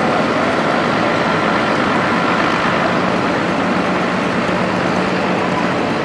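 Large modern tractor's engine running steadily under load, pulling a multi-furrow plough through the soil.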